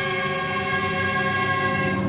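A loud, steady held tone with many overtones, constant in pitch, over a low rumble of passing race-car engines. The tone cuts off suddenly at the end.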